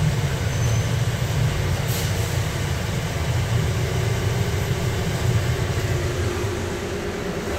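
Bombardier APM-100 people-mover car running on its guideway, heard from inside as a steady low rumble with a faint whine that comes in about halfway. The rumble eases near the end as the train slows for a station.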